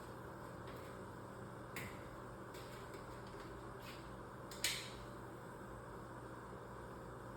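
A few light clicks or taps over a steady low hum: a small one about two seconds in, fainter ones after it, and a sharper, louder click about four and a half seconds in.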